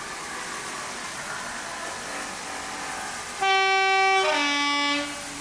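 Two-tone horn of a BR Class 33 'Crompton' diesel locomotive sounding once, about three seconds in: a high note for about a second, dropping to a lower note for just over half a second, then cutting off.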